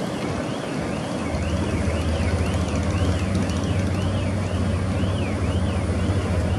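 Engine of a passing river ferry running with a steady low hum that grows louder about a second in, over the wash of its wake. A faint high tone sweeps up and down about twice a second throughout.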